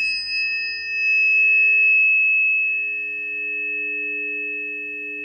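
Struck tuning forks ringing on, several steady pure tones sounding together. They swell a little about a second in and then ease slowly.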